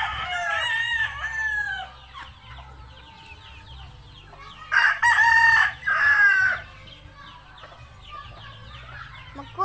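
A rooster crowing twice: one long crow at the start and another about five seconds in, with faint short chirps between.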